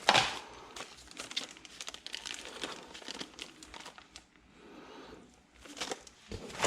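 Plastic packaging crinkling and rustling in irregular bursts as paddle board accessories are handled and unwrapped, loudest at the start, easing off past the middle and picking up again near the end.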